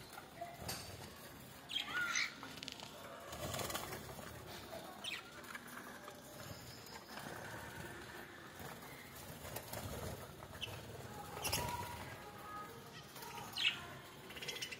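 Birds fluttering their wings in short bursts, with a few brief chirps scattered through.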